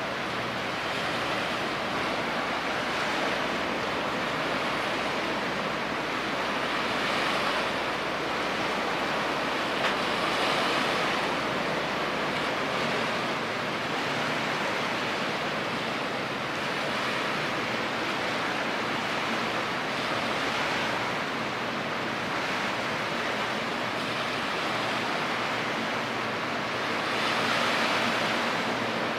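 Waves washing against the shore, a steady rush of water that swells every few seconds, with a faint low steady hum underneath.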